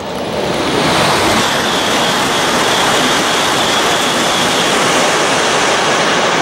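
E5 series Shinkansen passing at high speed: a loud, steady rush of air and wheel noise that swells over the first second and holds, with a faint high whine in the middle.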